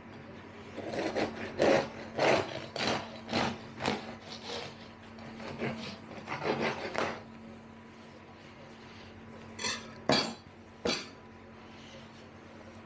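Knife sawing through the crust of a freshly baked loaf of white bread: rasping back-and-forth strokes, about two a second, then a pause and three short sharp knocks near the end.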